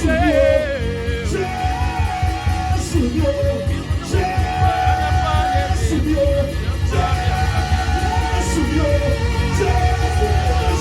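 Live gospel worship music: a singer holds long, wavering notes over a band with a heavy bass.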